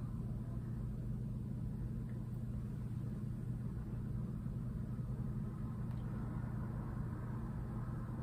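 Steady low hum of room background noise, with no speech.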